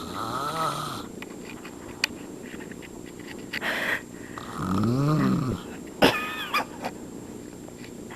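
A man snoring in deep sleep: two long snores on the in-breath about four and a half seconds apart, each rising then falling in pitch, each followed by a breathy exhale. Just after six seconds in there is a sharp click and a brief high squeak.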